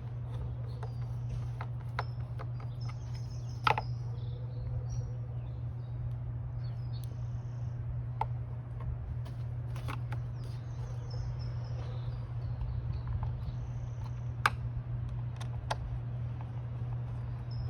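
Sharp clicks and taps of hand tools on metal fasteners, the loudest a little under 4 s in and again near 14.5 s, over a steady low hum. Birds chirp briefly in the background.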